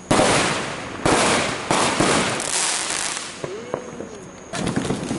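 Consumer aerial fireworks bursting overhead: three sharp bangs in the first two seconds and another near the end, each trailing off in a crackling hiss.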